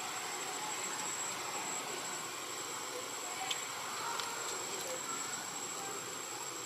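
Outdoor forest ambience: a steady hiss with one thin, high-pitched insect drone held unbroken throughout, and a couple of faint clicks about three and a half and four seconds in.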